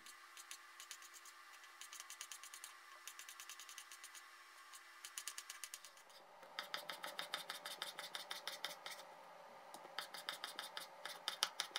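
Kitchen knife slicing boiled bamboo shoots into strips on a wooden cutting board: faint, rapid taps and scrapes of the blade through the shoot onto the board, in short runs with brief pauses.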